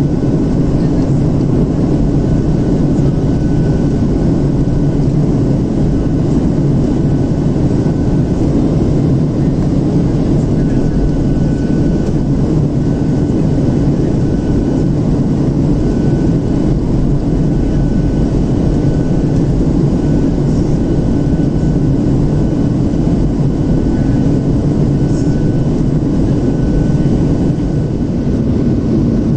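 Steady cabin roar inside a Boeing 737-700 on descent: the wing-mounted CFM56-7B jet engine and the airflow over the fuselage. A faint high whine comes and goes over the deep, even rumble.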